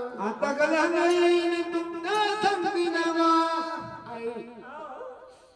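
A single voice singing a drawn-out gavlan phrase of Marathi jagran gondhal folk song, with long held notes that waver and slide in pitch. It fades away near the end.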